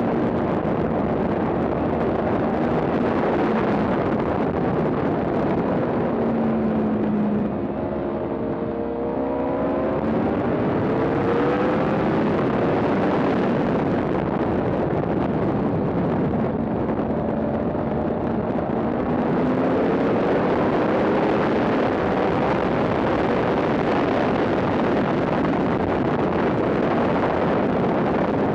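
Yamaha R1 inline-four engine at high revs on a track lap, heard through heavy wind rush at speed. About a quarter of the way through, the engine note drops as the throttle closes, then climbs again in rising sweeps through the gears, with another rising climb past the middle.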